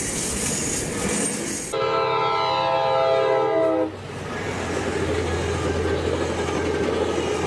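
Passenger train rushing past, then a train horn sounding a chord of several tones for about two seconds, starting and stopping abruptly, then a bilevel passenger train rumbling steadily past on the rails.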